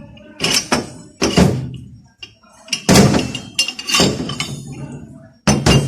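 Metal automatic-transmission parts clanking as they are handled and set in place during a rebuild: about half a dozen sharp metallic knocks and clinks, each with a short ring.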